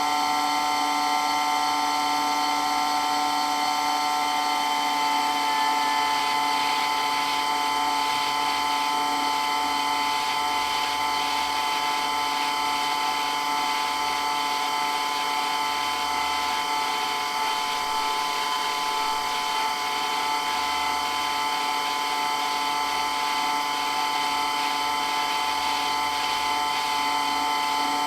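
Water-blasting pump running steadily, an even mechanical whine with several fixed tones that hold without change.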